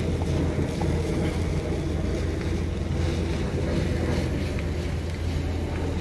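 Steady low rumbling outdoor background noise, like wind on the microphone, with faint scrapes of a spatula stirring food in a metal wok.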